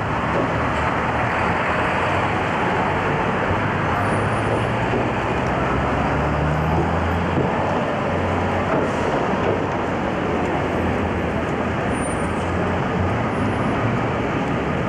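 Steady city street traffic noise, with the low hum of a vehicle engine that shifts in pitch around the middle.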